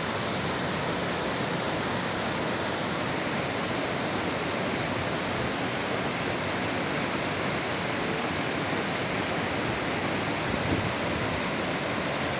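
Steady rush of a waterfall and the stream water running below it.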